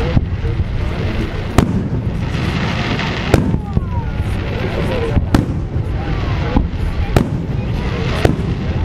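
Fireworks display: aerial shells bursting in a series of about seven sharp bangs, irregularly spaced a second or two apart, over a steady background rumble.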